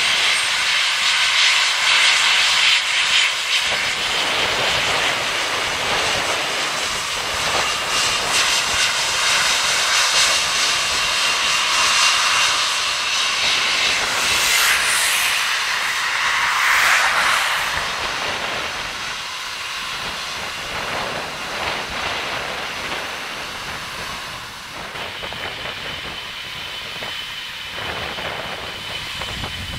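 Jet engines of a four-engined Airbus A340 taxiing past, a steady whine and hiss that is loudest at first and then gradually fades as the aircraft moves away.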